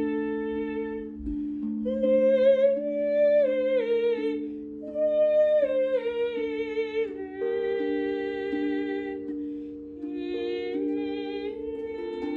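Acoustic music: a wavering melody that slides up and down between notes in four short phrases, over low held notes that change every second or so.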